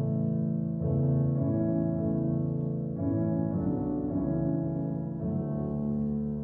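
Slow piano music with sustained chords, a new chord struck about every two seconds.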